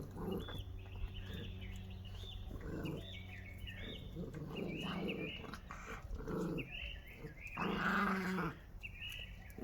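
Dogs squabbling over food: low growling from a dog guarding its raw fish, mixed with repeated short, high whines from another dog protesting. A louder outburst comes about eight seconds in.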